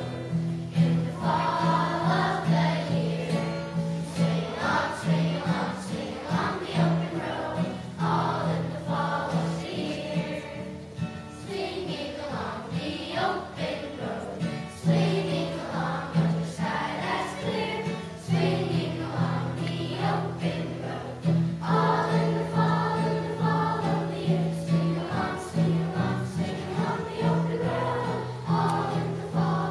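Children's choir singing a song with acoustic guitar accompaniment, going softer for a few seconds about ten seconds in before returning to full voice.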